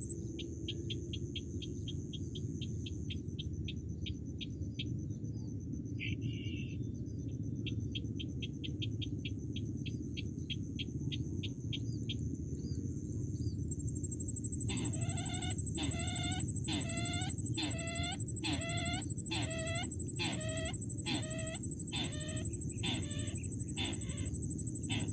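Bird calls used to lure sintar birds, chicken-like in character. For the first dozen seconds there is a fast run of short high ticking notes; from about halfway a loud series of regular downward-sliding calls follows, a bit more than one a second. Both sit over a steady high whine and a low rumbling background.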